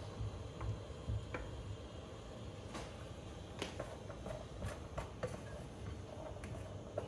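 Wooden chopstick stirring and tapping small tapioca dough pieces in a plastic colander: scattered light clicks and ticks over a low steady rumble.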